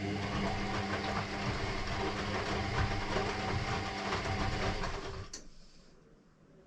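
Electrolux EW6S404WU washing machine running a motor with a steady hum for about five seconds, then winding down. A sharp click follows about half a second later.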